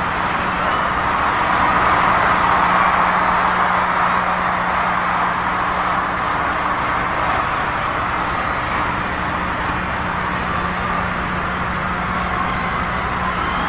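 Large concert crowd screaming and cheering without a break, with a low steady hum underneath.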